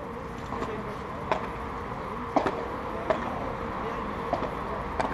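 Padel rally: several sharp pops of the ball off the solid padel rackets and the court, coming at irregular intervals of about a second, over a murmur of spectators talking.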